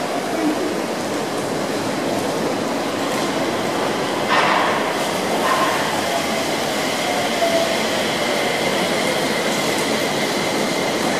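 Mitsubishi Crystal Mover rubber-tyred light-rail car running in and pulling into the station platform, with a whine that falls in pitch as it slows.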